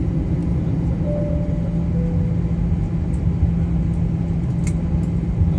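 Cabin noise of a taxiing Airbus airliner: a steady rumble of engines and rolling gear with a constant low hum. A faint falling two-note tone sounds about a second in.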